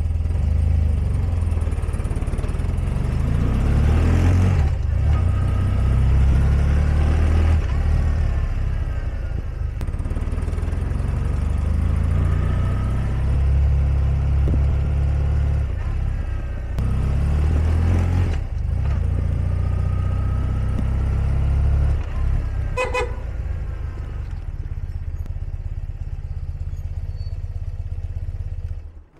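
1982 BMW R100RT's air-cooled flat-twin boxer engine pulling away in first and running through laps, its sound swelling and falling with throttle, then settling lower near the end as the bike comes back and stops.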